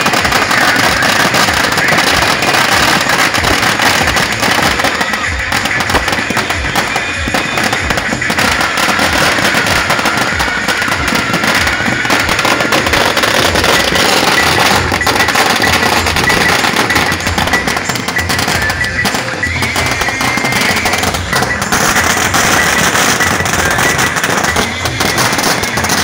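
Strings of firecrackers going off in a continuous rapid crackle of bangs, with music playing along.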